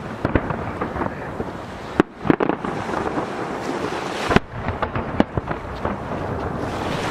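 Fireworks shells bursting over the sea: a scattering of sharp bangs, the loudest about two seconds and four and a half seconds in, echoing back off nearby mountains. Under them is a steady wash of waves breaking against a jetty, with wind on the microphone.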